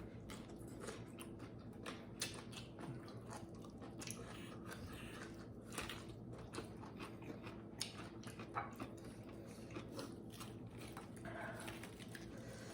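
People eating: irregular chewing and small crunches of food, faint and scattered throughout.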